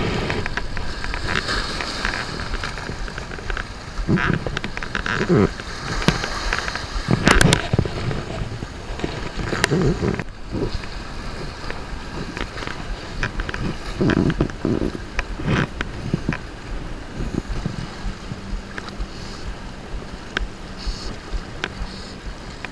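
Small waves sloshing and washing among the rocks of a stone jetty in irregular surges, with wind buffeting the microphone.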